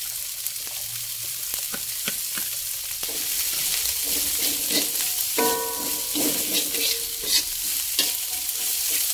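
Shredded cabbage frying in hot oil and spice paste in a wok, with a steady sizzle. A metal spatula stirs it, scraping and knocking against the pan.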